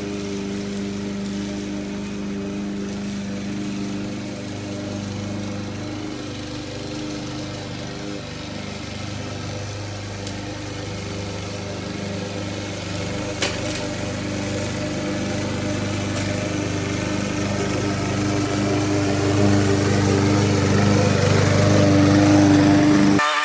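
The 161cc single-cylinder four-stroke engine of a PowerSmart self-propelled lawn mower runs steadily, growing gradually louder over the second half. There is a single sharp click about halfway through, and the sound cuts off abruptly at the very end.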